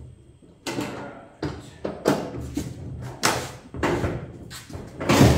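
Steel pickup tailgate clanking as it is worked loose and lifted off its hinges: a series of sharp metal knocks and thuds, the loudest near the end.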